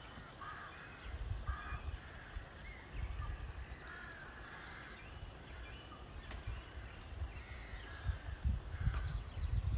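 Short bird calls scattered through, with a brief rapid rattle about four seconds in, over a gusty low rumble of wind on the microphone.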